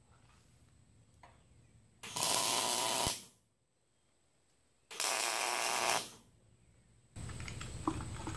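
Wire-feed welder arcing through two tack welds about a second each, a couple of seconds apart, fixing a steel shock-mount bracket to the frame. Near the end, a few light clicks and knocks.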